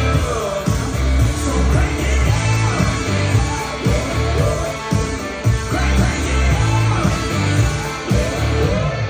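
Background rock music with a steady beat, strong bass and singing.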